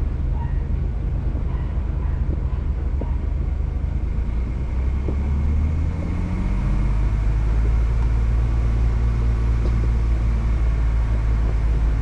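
Sixth-generation Ford Bronco's engine running as it drives slowly along a dirt trail, a steady low rumble whose pitch rises a little about five to seven seconds in.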